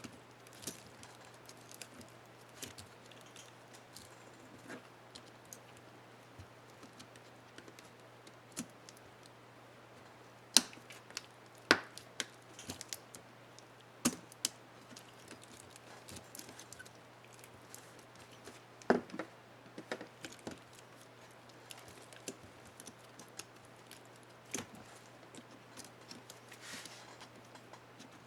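Irregular sharp plastic clicks and snaps from a laptop keyboard keycap, the space bar, being fitted onto its clips and pressed, over a faint steady low hum. The clicks come singly or in small clusters, the loudest about halfway through and again about two-thirds in.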